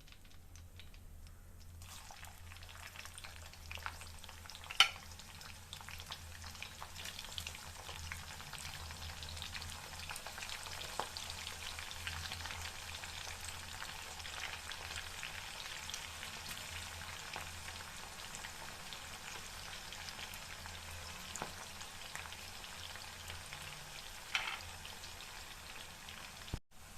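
Onions frying in hot oil in a kadai, sizzling steadily from about two seconds in as they go into the oil. A sharp utensil knock on the pan comes about five seconds in, with lighter knocks later.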